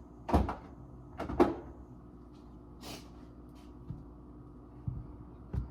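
Items and containers being handled and set into a refrigerator: two sharp knocks about a second apart, a brief rustle, then a few lighter taps.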